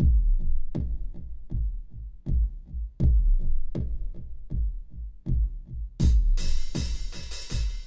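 Background electronic music with a steady drum-machine beat of low kick-drum hits; bright high-pitched percussion joins about six seconds in.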